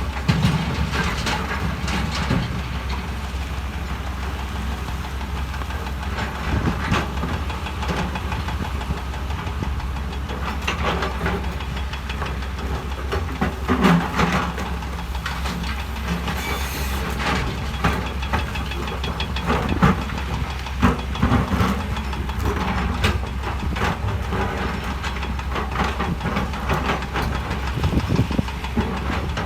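Heavy diesel earth-moving machinery running steadily under load, with irregular clanks and knocks throughout, as of steel and stone striking.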